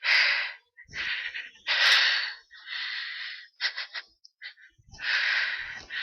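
A woman's sneezing fit from a cat allergy: a run of about six breathy gasps and sneezes, each starting suddenly.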